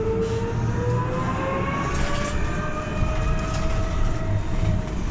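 Irisbus Cristalis ETB 18 trolleybus accelerating, heard from inside the cabin: the whine of its electric traction drive rises steadily in pitch and levels off near the end. Under the whine is a low rumble of road and body noise.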